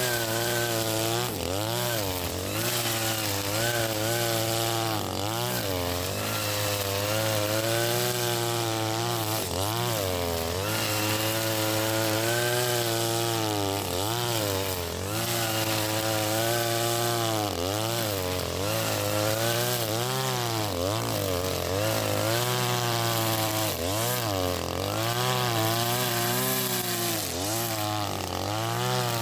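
Husqvarna 542RBS backpack brush cutter's 42cc two-stroke engine running with its nylon line cutting grass. The engine speed keeps dipping and rising again every second or two as the line bites into the grass.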